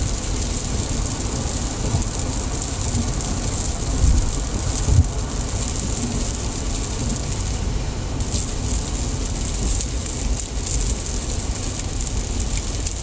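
Steady road noise inside a car at highway speed on a wet road: a low tyre rumble with the hiss of water spray, and a couple of brief thumps about four and five seconds in.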